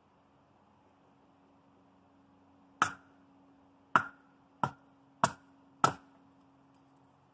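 Five sharp chops of a hatchet into a stick of firewood, splitting kindling. The first comes a little under three seconds in, and the rest follow about half a second to a second apart.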